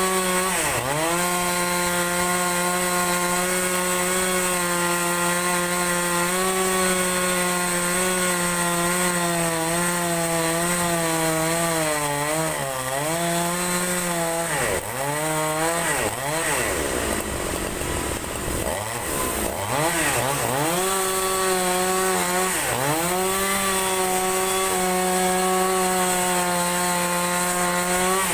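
Two-stroke chainsaw ripping a large log lengthwise, running at high revs. Its pitch sags as the engine bogs under the cut about a second in, several times in the middle, and again near the end, then climbs back each time.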